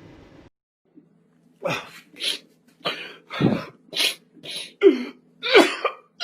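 A run of about nine short, sharp vocal bursts, roughly two a second, a few of them falling in pitch.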